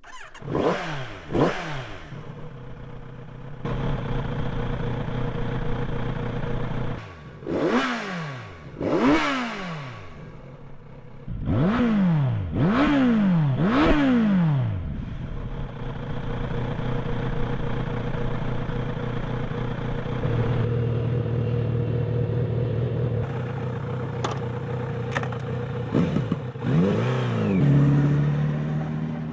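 Kawasaki Z900RS 50th Anniversary's 948 cc inline-four engine revving, its pitch rising and falling in a string of quick throttle blips, with stretches of steady running in between.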